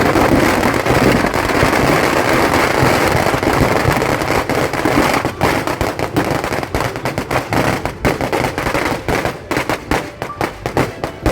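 Firecrackers going off in a dense barrage: an unbroken crackling rush for about five seconds, then breaking into rapid separate bangs that thin out toward the end.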